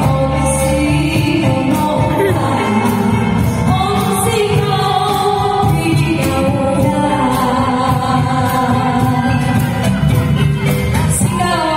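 Live music with several voices singing a sustained, melodic song, played for dancers.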